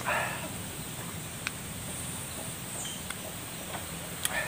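Mouth sounds of eating a green lime slice: a short, noisy mouth sound right at the start, the loudest thing here, a few faint clicks, and another short mouth sound near the end.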